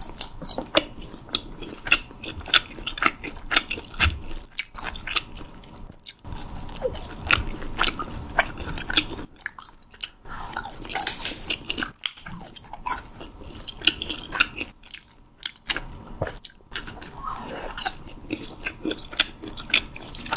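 Biting and chewing fried fish cake (eomuk twigim), with many short, crisp crackles from the fried batter between softer chewing sounds.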